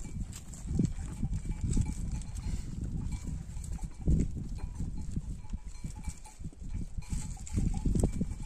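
Livestock close by, probably the sheep flock, with irregular low scuffling, shuffling and knocking.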